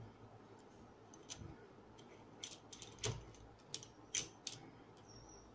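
Metal parts clicking and clinking as a threaded rod and steel tube linkage is handled and fitted onto a small 12-volt gear motor: about half a dozen sharp, separate clicks, the loudest about three and four seconds in.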